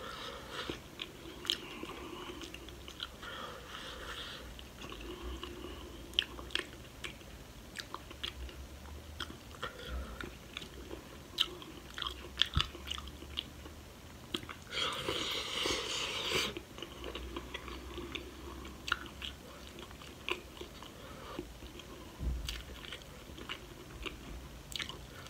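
Close-miked chewing and wet mouth sounds of a person eating a seafood boil in sauce, with many sharp wet clicks and smacks. A longer noisy stretch lasts about a second and a half, about fifteen seconds in.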